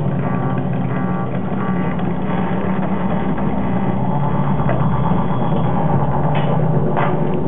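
Live electronic drone from a laptop synth and sound-manipulation set: a dense, steady low hum layered with held tones, with a deeper rumble coming in about halfway and two brief noisy flicks near the end.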